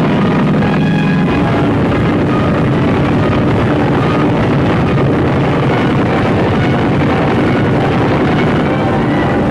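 Dramatic film-score music over a dense, steady roar of aircraft engines.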